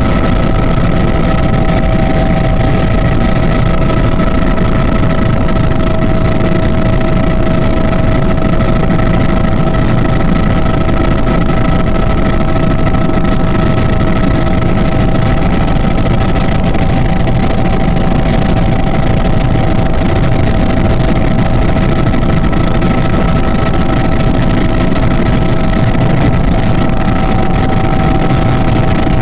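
Small aircraft's engine running steadily in flight, heard from inside the cabin as a loud, even drone with a few constant whining tones over a deep rumble.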